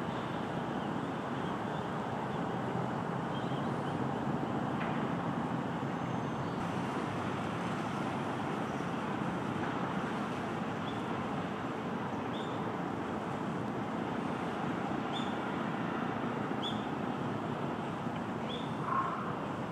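Steady background din of distant road traffic, with short high bird chirps every second or two in the second half and a brief louder call near the end.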